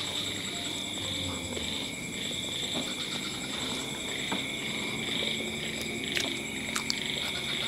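Steady night chorus of calling animals, a continuous pulsing trill at two high pitches, with a few soft clicks and smacks from eating with the fingers close to the microphone.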